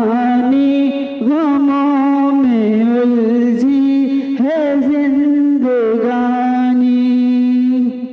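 A single voice singing a hamd, a devotional hymn in praise of God, holding long notes and ornamenting them with quick wavering turns, with no instruments heard.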